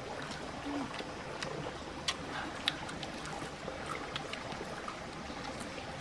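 Steady rush of flowing stream water, with a few short, sharp clicks from eating fried chicken wings by hand.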